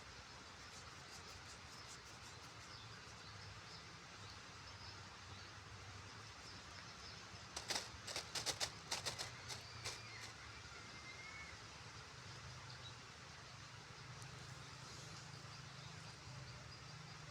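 Quiet outdoor background hiss with faint high chirps. About eight seconds in comes a quick run of a dozen or so sharp clicks lasting about two seconds.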